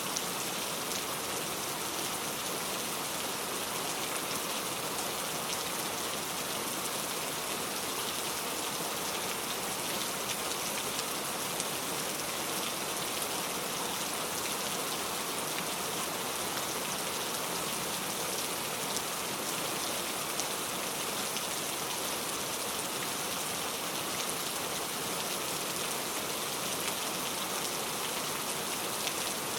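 Heavy, steady rain falling, a dense even hiss of drops.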